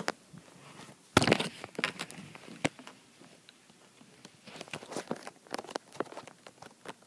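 Handling noise and rustling: a sharp knock about a second in, a few smaller clicks after it, then a scatter of small clicks and crackles through the second half.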